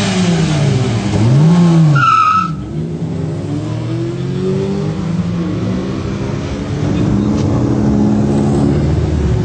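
Car engine revved up and down twice at the start line, then launched with a short tyre squeal about two seconds in and accelerating hard away, its pitch climbing through the gears.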